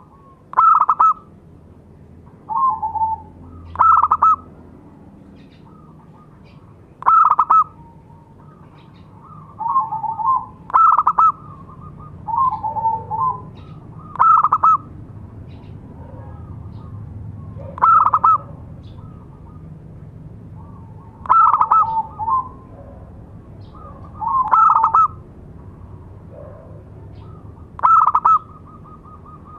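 Zebra dove (perkutut) singing its short cooing call phrase, repeated about nine times with pauses of two to four seconds between phrases.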